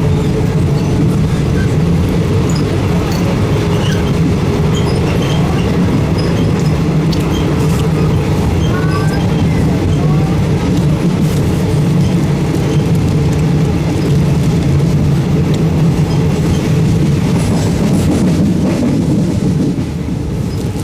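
Steady rumble and rattle of a Thai Railways third-class carriage running along the track, its wheels clattering over the rails, heard from inside the carriage.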